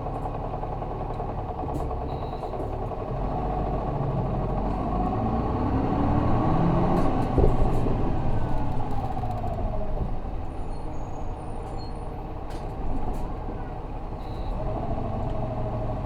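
Isuzu 6HK1 six-cylinder diesel of a city bus heard from inside the cabin, pulling hard as the bus accelerates: the engine note climbs for about four seconds, breaks off sharply about halfway through, then drops back and eases off.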